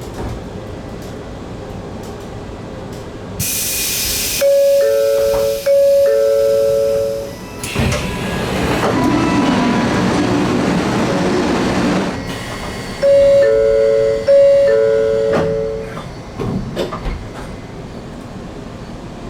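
N700S Shinkansen door chime, a high-then-low two-note ding-dong sounding twice, followed by several seconds of rushing noise from the doors moving, then the two-note chime twice more. A short hiss of air comes just before the first chime.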